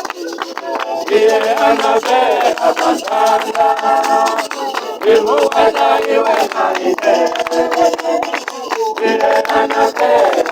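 A church congregation singing together in phrases of a few seconds, with sharp hand claps running through the singing.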